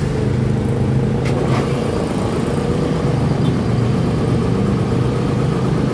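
A motor running steadily with a low, even hum that holds the same pitch throughout.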